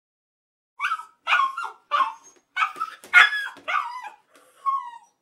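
Chihuahua barking: a quick run of about eight short, high-pitched barks, starting about a second in.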